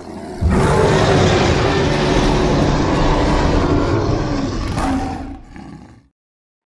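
A single long monster roar sound effect, rough and deep with a strong pitched tone. It swells in over the first half second, holds loud for about four seconds, then fades out.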